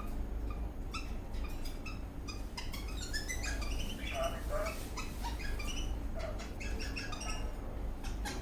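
Eastern rosella parrot chirping and whistling in quick short notes, with a run of notes stepping up in pitch about three seconds in.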